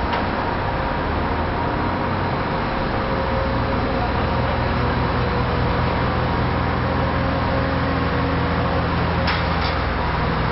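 A heavy diesel engine running steadily at a constant speed, with two short clicks about nine seconds in.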